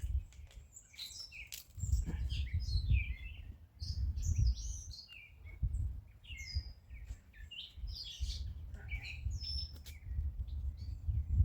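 Wild birds chirping and calling again and again, with patches of low rumble in between.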